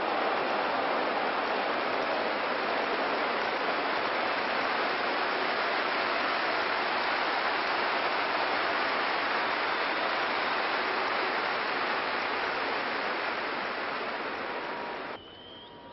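Stadium crowd noise from a large football crowd: a steady, dense wash from the stands, easing a little toward the end and cutting off suddenly just before the end.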